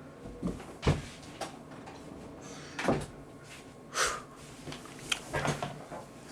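A series of separate knocks and thumps, about six over six seconds, loudest about one, three and four seconds in: handling or bumping noises like a cupboard or door being moved.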